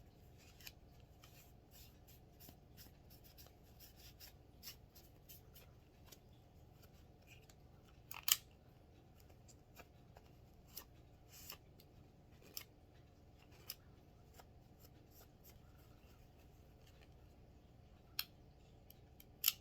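A cloth rag wiping and polishing a revolver: faint rubbing with scattered small clicks and taps of the metal gun being handled, a sharper tap about eight seconds in and another near the end.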